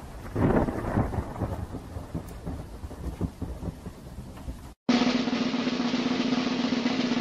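A dog's paw patting at a cat and a couch cushion: a run of irregular soft thumps and rustles. About two-thirds of the way through this cuts off abruptly and gives way to a steady low hum with hiss.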